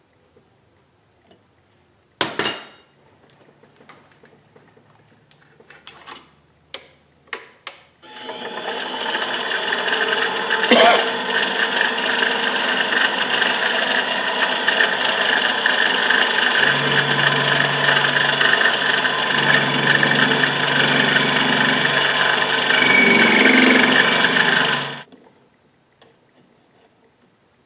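Benchtop mini lathe spinning a titanium ring while the cutting tool takes its edge off: a loud, steady scraping cutting noise starts about eight seconds in, runs about seventeen seconds and cuts off suddenly. Before it, a knock and a few clicks as the ring is clamped in the three-jaw chuck.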